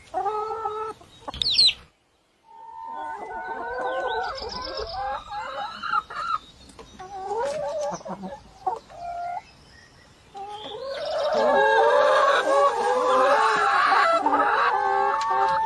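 A flock of brown hens clucking and calling, many voices overlapping. The calls break off briefly about two seconds in, then grow louder and denser from about eleven seconds on.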